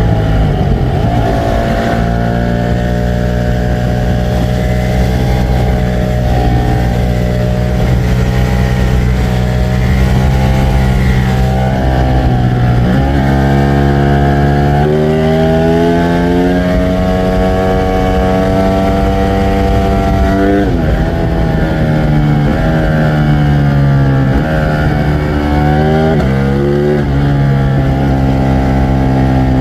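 Ducati Streetfighter V4 S's 1103 cc V4 engine running under way. Its pitch holds steady for the first dozen seconds, then drops sharply about halfway in and again a little later, climbing again with throttle in between and rising and falling several times near the end.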